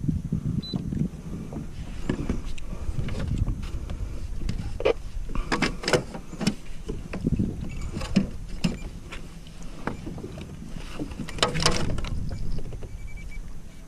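Clatter and knocks of a caught fish being handled against a plastic measuring board in a kayak: many short sharp clicks from about 5 seconds in until near the end, over a steady low rumble.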